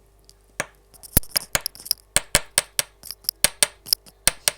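A rapid run of sharp, dry clicks made close to the microphone, about five a second, starting about half a second in.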